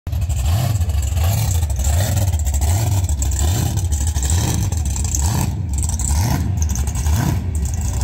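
Yellow Chevrolet Camaro burnout car's engine running loud, a deep rumble that rises and falls rhythmically about every three-quarters of a second.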